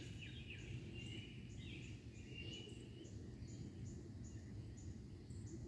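Faint outdoor ambience: a high insect call pulsing about twice a second, with a few scattered bird chirps over a steady low rumble.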